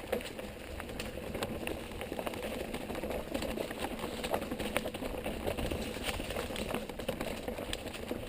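Mountain bike riding down a dirt trail: tyres rolling over dirt and rocks, with the bike's chain and parts rattling in many short clicks over a steady rushing noise.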